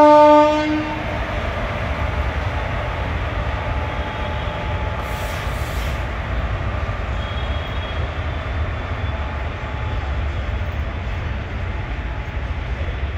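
An electric locomotive's horn ends about half a second in, then a goods train of loaded open wagons keeps rolling past with a steady low rumble of wheels on rails.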